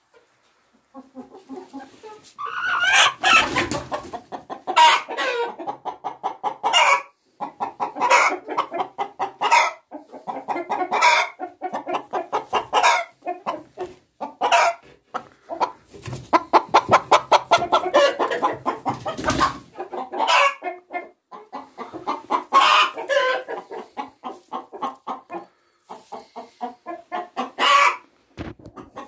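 Hen cackling: quick runs of clucks that build into loud, shrill squawks, over and over every two to three seconds. This is the egg song that hens give around laying an egg.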